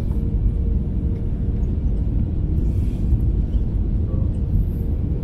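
Airbus A320 cabin noise on final approach: the steady low rumble of the engines and rushing air heard from a window seat over the wing, with a faint steady hum running through it.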